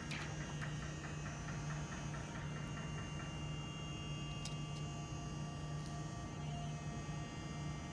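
A steady low electrical hum, with a few faint clicks from the plastic OCA film being peeled and handled.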